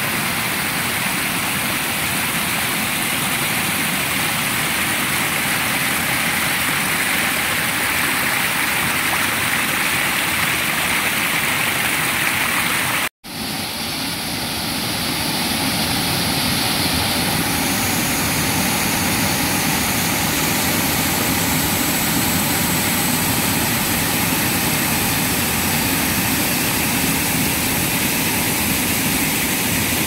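Small waterfall cascading over rocks: a steady rush of water. It breaks off abruptly about thirteen seconds in and swells back up over the next few seconds.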